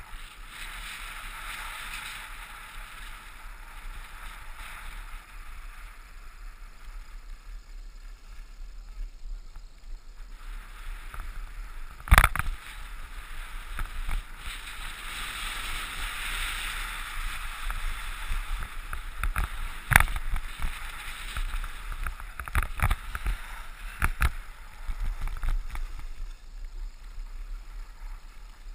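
Skis running on packed snow: a hiss from the skis that swells and fades through the turns, with a few sharp knocks, the loudest about twelve seconds in.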